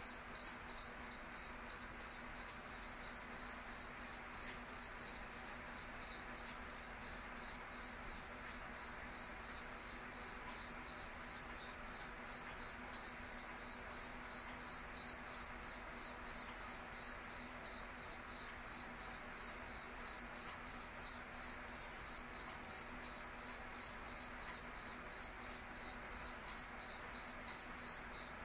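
A cricket chirping in a steady, even rhythm of short, high-pitched pulses that never breaks.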